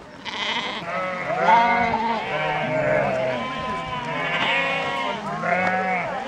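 A flock of sheep bleating, many calls overlapping one another as the animals move together.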